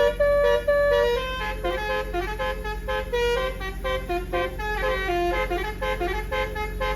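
A bus's Basuri V3 telolet musical horn playing a fast melody of short notes that step up and down in pitch. The bus engine hums steadily underneath.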